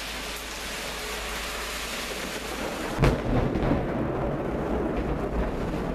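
Steady hiss of heavy rain, then a sharp crack of thunder about halfway through that rolls on into a low rumble.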